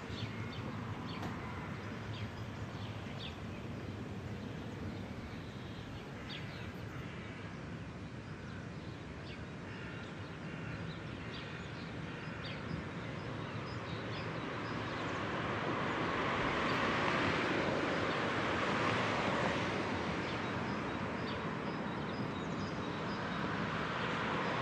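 Outdoor ambient noise: a steady hiss and rumble that swells up in the second half and eases again, with faint short high chirps scattered through it.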